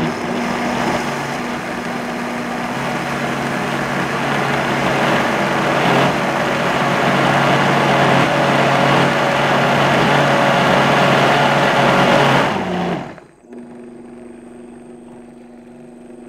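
Vitamix blender running on a thick corn chowder of potatoes, corn, onions, stock and almond milk. It starts at low speed and is turned up to speed 7, getting louder over the first few seconds. It stops about 13 seconds in, leaving a much quieter steady hum.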